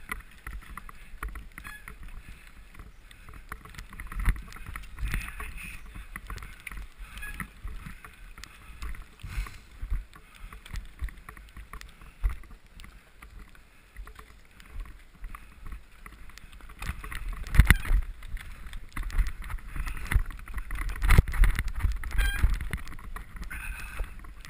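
Bicycle ridden over a bumpy snow-covered trail: irregular knocks and rattles from the bike and tyres over rough ground, over a steady low rumble, with the sharpest jolts in the second half.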